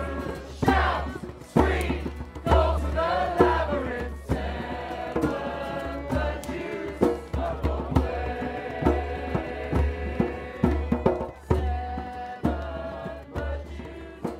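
A group of voices chanting together over regular drum beats; from about five seconds in, the chant settles into longer held notes while the drumming continues.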